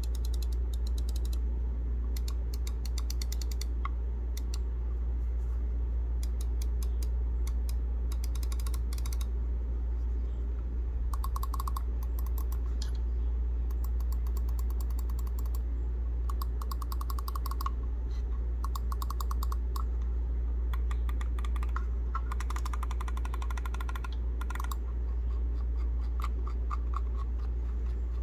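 Razer DeathAdder V2 Mini gaming mouse clicking in quick runs: its optical-switch main buttons, scroll wheel and thumb side buttons pressed by hand, over a steady low hum.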